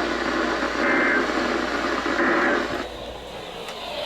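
Radio static from a weak broadcast reception, with two short buzzy data bursts about 1.3 s apart: the Emergency Alert System end-of-message code closing the relayed alert. The static drops in level about three seconds in.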